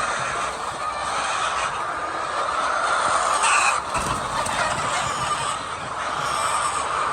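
A large flock of chickens clucking and calling together in a steady, dense chorus.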